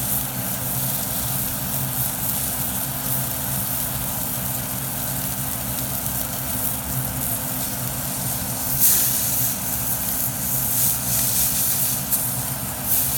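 Salmon frying in a pan: a steady sizzling hiss that flares up about nine seconds in and again near the end, over a steady low hum.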